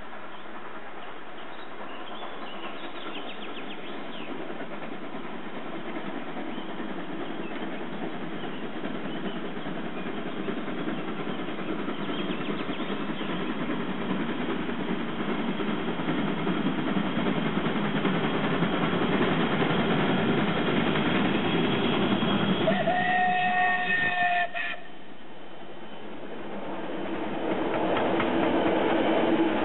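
Steam locomotive working up the line, its running sound growing steadily louder as it approaches. About 23 s in it gives one steam-whistle blast lasting about two seconds. The sound drops suddenly just after, then the carriages rolling close past grow loud near the end.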